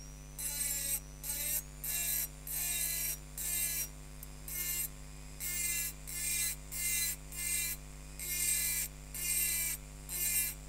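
A large diamond burr in a rotary engraving handpiece grinding into a wet wine glass in short strokes, a little more than one a second, each a gritty rasp with a faint whine. A steady low hum runs underneath.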